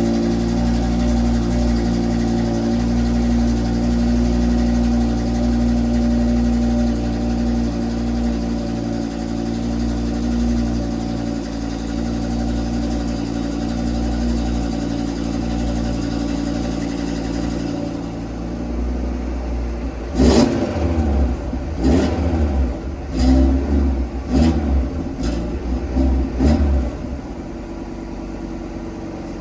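Audi RS3's turbocharged five-cylinder engine at cold-start idle, its idle speed stepping down twice as it settles. About twenty seconds in, the throttle is blipped six times in quick succession, short revs that fall back to idle each time, before it settles to a steady idle.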